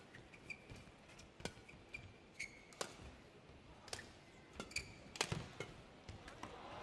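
Badminton rally: sharp pops of rackets striking the shuttlecock, a hit every second or so, with short squeaks of court shoes on the mat between them.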